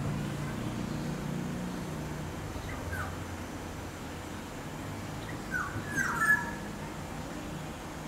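Short animal calls, each sliding down in pitch: one about three seconds in, then a quick cluster of three or four around six seconds, the last of them the loudest. A steady low rumble runs underneath.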